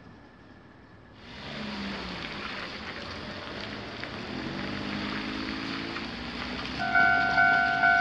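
A steady hiss of rain and traffic on a wet street, with a car's engine rising as it passes. About a second before the end, a Japanese railway crossing's electronic warning bell starts ringing, about two evenly spaced, decaying strikes a second, as the crossing's lights begin to flash for an approaching train.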